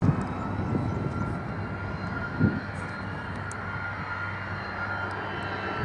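Pilatus PC-24 twin-turbofan business jet taxiing, its engines giving a steady whine over a low hum, with a few short low thumps in the first three seconds.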